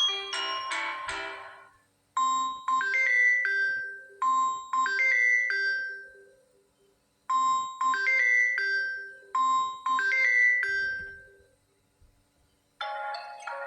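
Samsung Galaxy A03 ringtones. The first fades out over about two seconds. Then a short melody of struck, ringing notes plays twice with a brief pause between, and a different ringtone starts about a second before the end.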